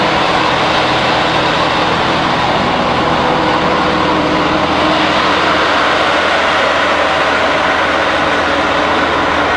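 Plastics processing machinery running steadily: a loud, even machine noise with a constant low hum under it.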